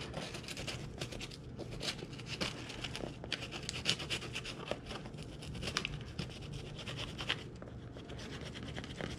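Old, brittle paper build sheet being scraped and peeled off the cardboard backing of a door panel, heard as a run of irregular short scratches and small tearing sounds.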